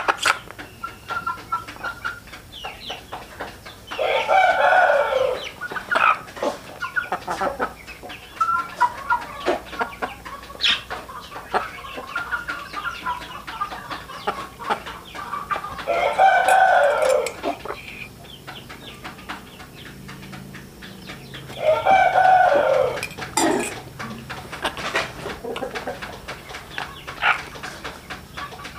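Rooster crowing three times, each crow lasting about a second and a half, with quieter chicken calls and scattered clicks in between.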